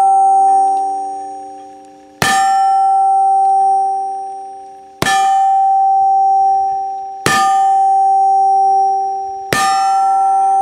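Four shots from a black-powder Remington New Model Army cap-and-ball revolver, about two and a half seconds apart. Each is a sharp crack followed by a loud metallic ring of the same pitch that lasts over a second before fading. The ring of a shot fired just before is still sounding at the start.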